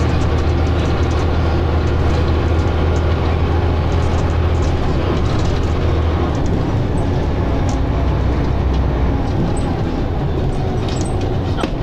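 Dennis Arrow double-decker bus under way, its engine and drivetrain giving a loud, steady low drone that shifts lower about six seconds in, with faint clicks and rattles over it.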